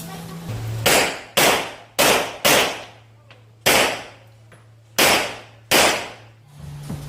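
Seven pistol shots from a Rock Island Armory Tac Ultra FS HC 1911 in uneven groups: two quick pairs, a single shot, then a last pair. Each shot ends in a short decaying tail.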